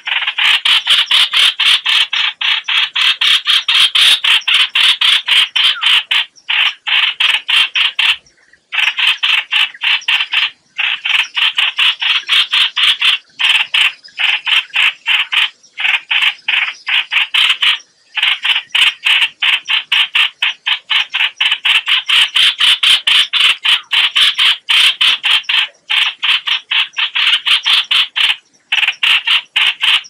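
Recorded distress calls of the chao chảo, a bulbul: rapid harsh chattering notes, several a second, in long runs broken by brief pauses. This is a call played as a lure for trapping the birds.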